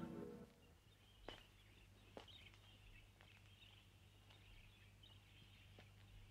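Music fading out, then near silence: a steady low hum, two faint clicks, and faint, scattered high chirping.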